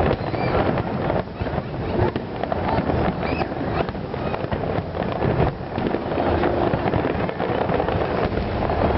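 Fireworks going off as a steady, dense run of small pops and crackles, with wind noise on the microphone.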